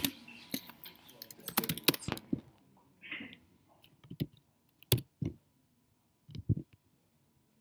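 Typing on a computer keyboard: a quick run of keystrokes for about the first two seconds, then a handful of separate key presses spaced out through the rest.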